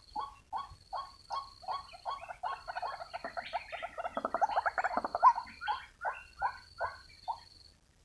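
White-breasted waterhen calling: a rhythmic run of short calls, two to three a second, that swells into a dense, overlapping burst loudest about five seconds in, then returns to the steady beat.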